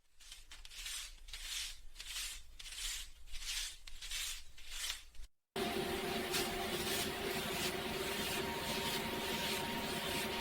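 Paper banknotes handled close to the microphone: about nine rhythmic rubbing strokes, nearly two a second, then from about halfway a steadier, denser rustle.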